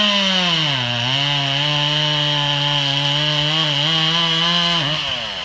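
Stihl MS 180 C two-stroke chainsaw cutting under load. Its engine note sags about a second in and holds lower, bogging with the bar pinched in the cut, then the revs drop off near the end.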